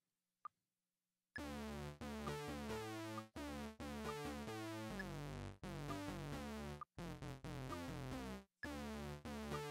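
Modal Cobalt8X synthesizer playing a hard-synced sawtooth patch, a mod envelope sweeping the synced oscillator on each note to give robotic, vowel-like tones. A fast run of short notes starts about a second and a half in.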